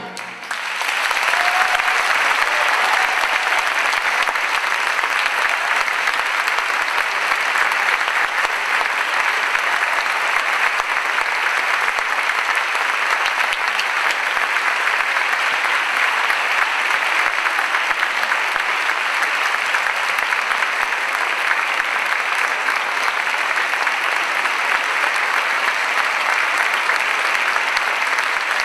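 Concert audience applauding, the clapping swelling in the first second as the music ends and then holding steady.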